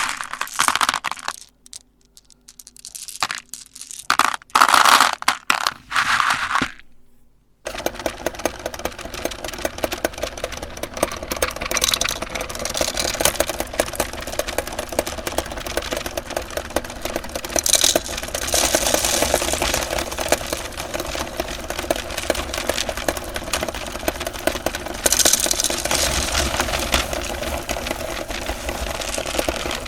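Irregular bursts of crunching and rattling, then about eight seconds in a meat grinder's motor starts suddenly and runs steadily, crunching M&M candies with a dense crackle.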